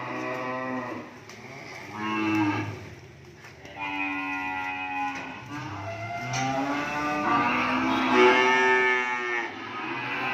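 Young cattle mooing: about five long calls one after another, some running into each other, the loudest near the end.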